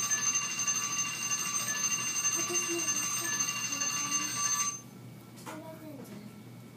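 School bell ringing steadily for nearly five seconds, then cutting off abruptly.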